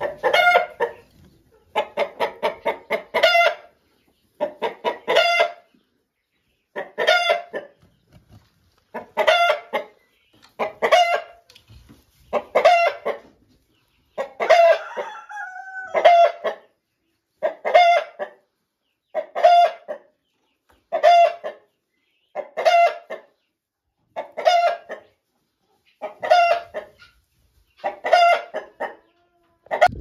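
Chicken cackling: a long run of loud, evenly spaced calls, one about every one and a half to two seconds. One run begins with quick short clucks before the loud call, and one call near the middle rises and falls in pitch.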